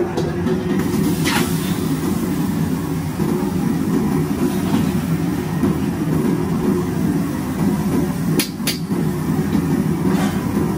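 Commercial gas wok burner running with a loud, steady low rush, and a metal ladle clanking against the wok a few times, two knocks close together near the end.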